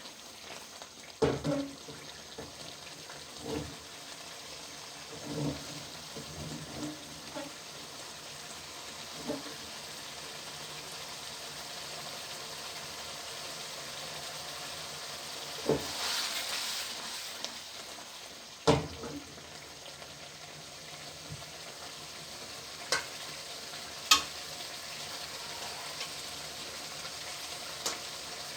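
Tilapia pieces frying in spiced oil in a karahi, with a steady sizzle. Every few seconds a sharp knock or scrape sounds, from a metal spatula turning the fish against the pan.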